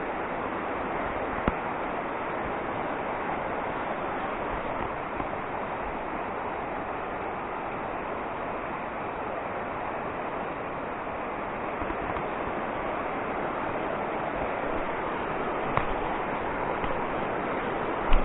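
Steady rushing outdoor noise, with a few faint clicks about a second and a half in, near the end, and just before the end.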